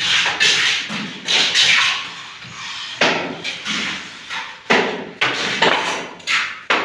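Plastering tools scraping and slapping against cement plaster on a wall: a run of sharp strokes, coming closer together in the second half.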